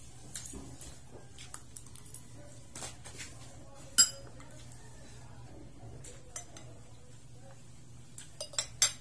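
Metal spoon and fork clinking and scraping against dishes during eating. There is one sharp clink about four seconds in and a quick run of clinks near the end.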